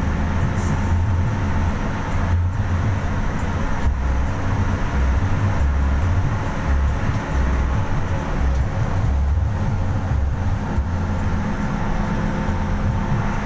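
A vehicle driving through heavy rain: a steady low road and engine rumble that wavers in strength, under a continuous wash of rain and tyre spray.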